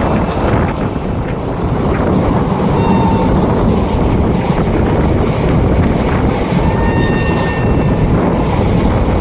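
Passenger train running at speed, heard from an open carriage window: steady wheel-and-rail noise with heavy wind buffeting on the microphone.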